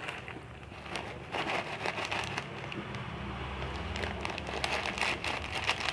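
A plastic Tic Tac snack packet crinkling and rustling as it is squeezed and tipped out over a bowl, getting busier after about a second.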